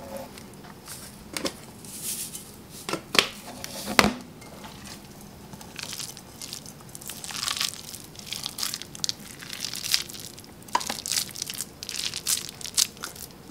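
Bare hands squeezing and packing a veggie-burger mix of veggie ground and breadcrumbs in a bowl: an irregular crackly, squishy rustle. A couple of sharp clicks come about three and four seconds in.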